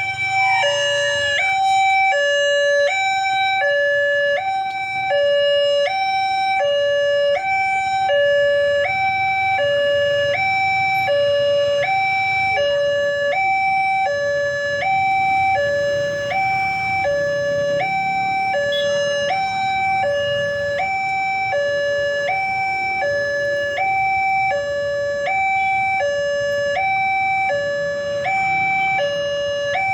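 Indonesian railway level-crossing warning alarm, the high-note version: an electronic two-tone signal alternating steadily between a higher and a lower tone, one full high-low cycle about every second and a half.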